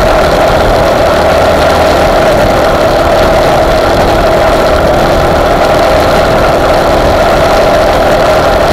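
Honda GX390 single-cylinder four-stroke engine of an off-road buggy, running loud and steady as the buggy drives.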